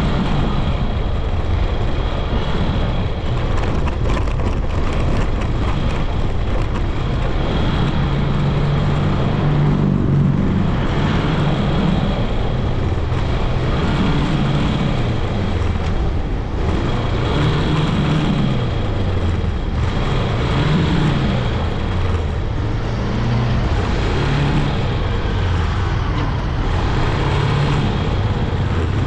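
Motorcycle engine running while riding, its pitch rising and falling again and again with the throttle, over steady wind and road noise.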